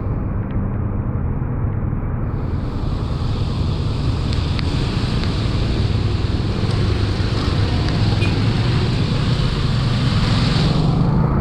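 Vehicle running along a road: steady engine hum and road noise, with wind rushing on the microphone. A higher hiss comes in about two seconds in and drops away near the end.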